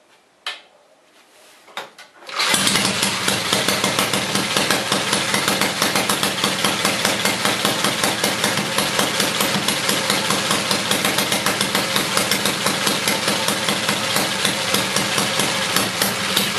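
1908 NSU motorcycle's single-cylinder engine: two light clicks, then it catches about two seconds in and runs steadily with a rapid, even firing beat.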